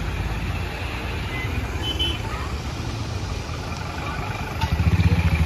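Heavy diesel truck engine running with a low rumble, growing louder with a pulsing throb near the end.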